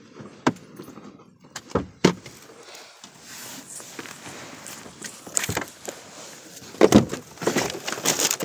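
Handling noise as a phone is moved about inside a car: a few sharp knocks early, then rustling and a cluster of louder knocks and bumps near the end as a person shifts and moves to get out.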